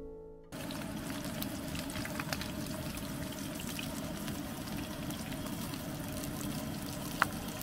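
Thin cuts of beef sizzling in oil in a frying pan on a Coleman camp stove: a steady sizzle with scattered small pops and crackles, and one sharp pop near the end.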